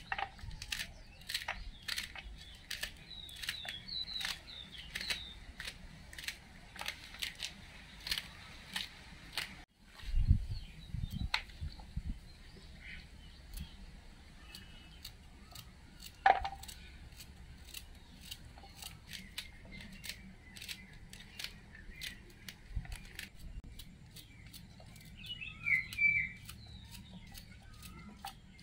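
Small knife cutting crisp radish stalks and leaves by hand, a steady series of sharp snicks about two a second, with the pieces dropping onto a steel plate. Birds chirp in the background.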